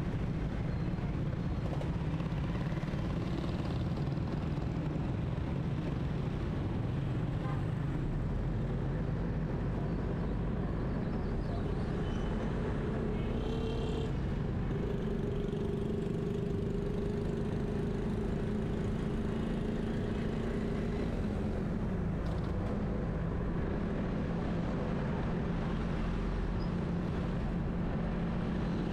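Steady engine and road noise of a car driving through city traffic.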